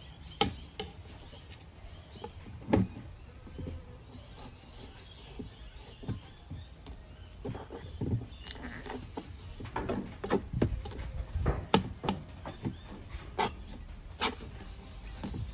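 A knife slicing raw fish flesh off the bones on a cutting board. Irregular taps and knocks of the blade against the board come with soft scrapes, and grow more frequent about halfway through.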